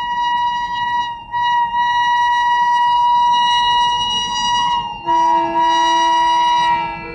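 WAP 7 electric locomotive's horn sounding in long, loud, steady blasts, with short breaks about a second in and about five seconds in. A lower second tone joins the last blast. Low train running rumble underneath.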